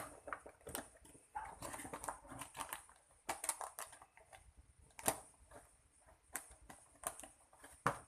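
Hands squeezing and handling a soft foam squishy toy: irregular soft crackles and sharp little ticks, a few louder ones spread through, over a faint steady hiss.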